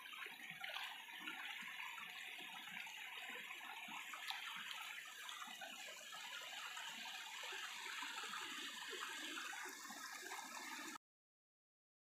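Shallow stream water running over rocks, a steady rushing, which cuts off abruptly near the end.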